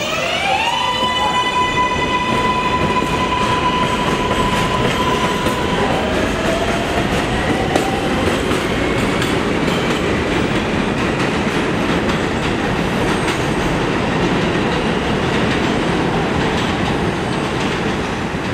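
R142A subway train pulling out of the station. Its electric propulsion whine rises in pitch over the first second, holds a steady tone for several seconds, then rises again. Under it, the wheels rumble and clatter on the track as the train leaves.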